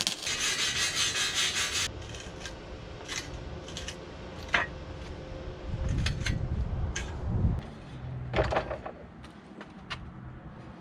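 Hands-on workshop work: a rapid rasping, sawing-like scrape for about two seconds, then scattered clicks and knocks of tools and parts being handled, with a few dull thuds and a short clatter of metal near the end.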